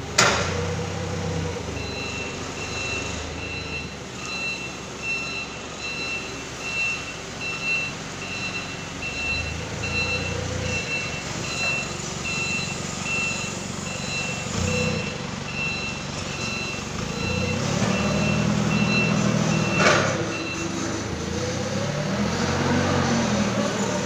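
Forklift engine running while its reversing alarm beeps steadily, about one and a half beeps a second, from about two seconds in until about twenty seconds in. The engine revs up near the end, and there are sharp knocks at the very start and about twenty seconds in.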